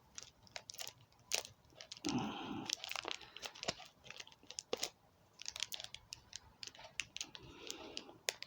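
Packaging crinkling and scraping with scattered sharp clicks as a tightly packed model airliner wing is worked loose from its box insert.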